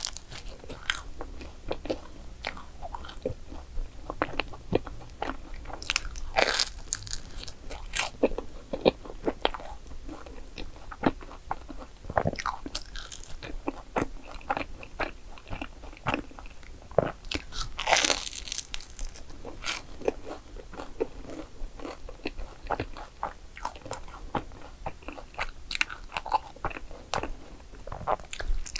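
Close-miked crunchy bites and chewing of a croffle (croissant waffle), its crisp crust crackling between the teeth. There are repeated crunches throughout, and the loudest bites come about six and eighteen seconds in.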